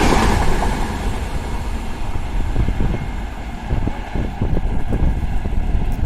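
A passing passenger train's noise falls away about a second in as the last coaches clear. A lower, uneven rumble follows, with irregular gusts of wind buffeting the microphone.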